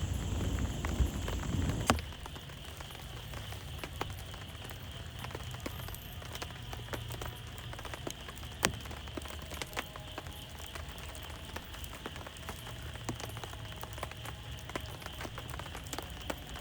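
Rain falling steadily, with many separate drops ticking sharply on a nearby surface. For about the first two seconds a low thunder rumble runs under it, then cuts off abruptly.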